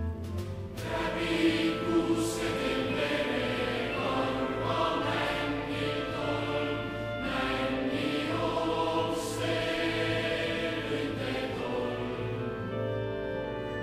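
Background music: a choir singing long, held chords.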